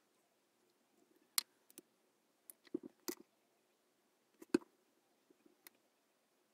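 Small plywood speaker-box parts being handled and set down on a wooden workbench: a few light clicks and taps, with the loudest knock about four and a half seconds in.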